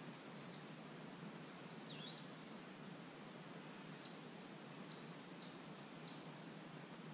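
Bird calls: a series of short, high, arching chirps, about six of them spaced roughly a second apart, over a faint outdoor background.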